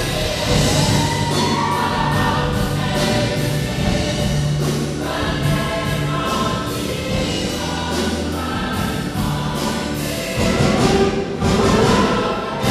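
A choir singing gospel-style music with instrumental accompaniment, held bass notes underneath, swelling fuller and louder near the end.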